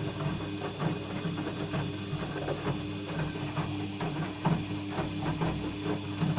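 Washing machine drum turning with a scraping, creaking metal-on-metal noise over the motor's steady hum, many short irregular scrapes. The cause is unknown: the owner found no foreign objects in the drum and a metal hairpin already taken out of the drain has not cured it.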